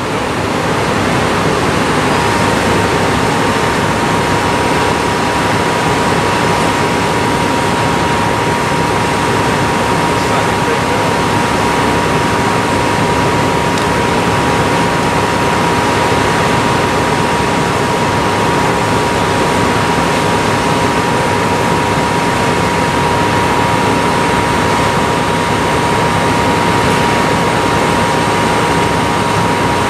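Excavator engine running under load while its hydraulic drive head turns a steel ground screw into the ground: a steady, heavy machine noise. A steady high whine sets in about two seconds in and holds.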